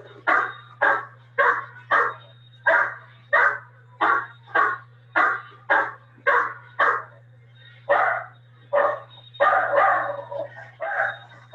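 A dog barking over and over, about two sharp barks a second with a brief pause in the middle, over a steady low hum.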